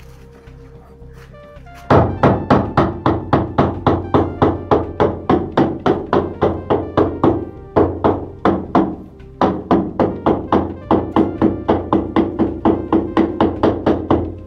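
Mallet tapping a granite countertop slab in quick regular strikes, about four a second, to bed it down into a cement and tile-adhesive mix. The tapping starts about two seconds in and pauses briefly twice, over background music.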